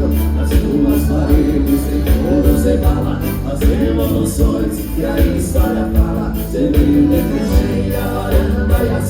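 Live gaúcho dance-band music: button accordion over bass and drums, with a steady dance beat.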